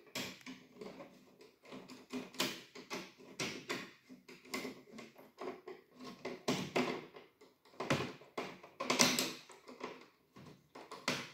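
Irregular clicks and taps of metal and plastic as a screwdriver tightens the clamp screw of a steel ring clip around a clear plastic seed drum with red caps.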